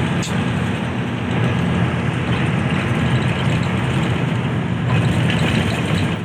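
Intercity bus engine running steadily, a low engine note over road noise.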